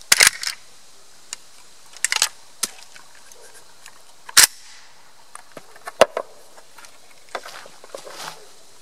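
Sharp metallic clacks of a homemade AK-63D rifle's action being worked by hand. The bolt carrier is racked back and slams forward several times to clear a round that failed to feed. The loudest slams come right at the start and about four and a half seconds in, with lighter clicks near the end.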